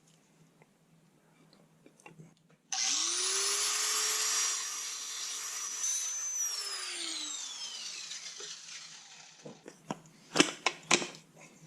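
An electric grinder switched on, its motor spinning up quickly with a rising whine, then running for a few seconds. It then winds down with a slowly falling whine as it coasts to a stop. A few sharp clicks and knocks follow near the end.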